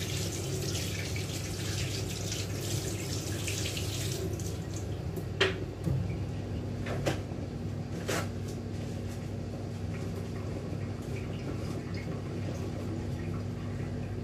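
Kitchen tap running into the sink while a utensil is washed, the water stopping about four and a half seconds in. Then three sharp clinks of dishes, over a steady low hum.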